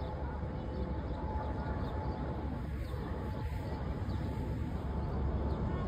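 Steady low outdoor rumble with faint bird chirps over it.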